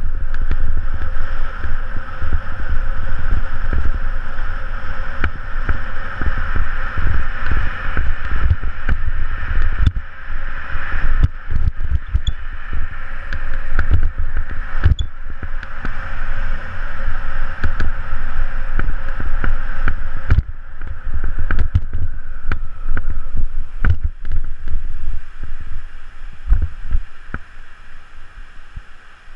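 Wind buffeting the microphone of a camera on a moving bicycle: a loud, irregular low rumble in gusts, with a steady hiss over it. It dies down near the end.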